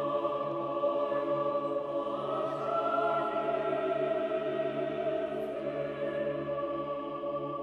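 Slow choral music with long held chords; a higher part moves up in pitch about two seconds in.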